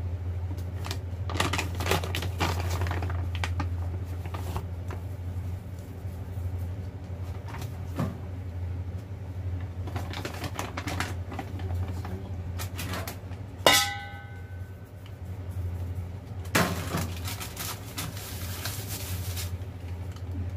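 A metal baking tin and its paper lining being handled: scattered clicks and rustling, and one sharp metallic clank that rings briefly about 14 seconds in. A steady low hum runs underneath.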